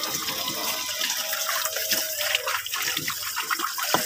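Tap water running into a plastic bowl in a steel sink while hands swish and splash the water around in it. There is a sharp knock just before the end.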